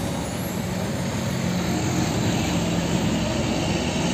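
Hino cargo truck driving along a road: a steady engine hum with road noise.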